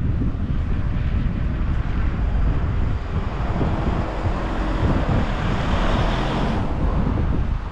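Wind buffeting the camera microphone, a heavy steady rumble. A louder rushing noise swells up about halfway through and cuts off suddenly a second before the end.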